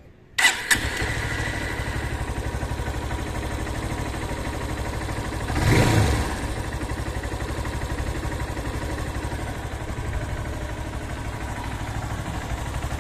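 Honda CB190R single-cylinder four-stroke motorcycle engine starting up, catching within a second, then idling with an even, steady pulse; the sound swells briefly about six seconds in. With Lucas oil stabilizer freshly added, the owner hears no valve clatter ("clac, clac") from the cylinder head and judges it to run more stable.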